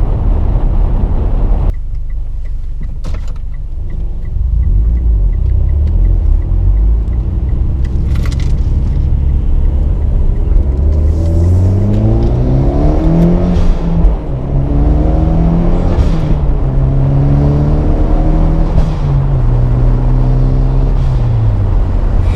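Mitsubishi Lancer Evolution X's turbocharged four-cylinder engine pulling through the gears over a steady deep road rumble. The engine note rises, drops at each upshift and climbs again several times, then falls away near the end.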